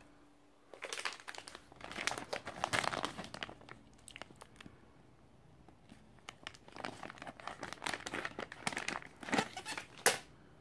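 Clear plastic cable-tie packaging crinkling as it is handled, in two spells of rustling with a short lull between, ending in one sharper crackle near the end.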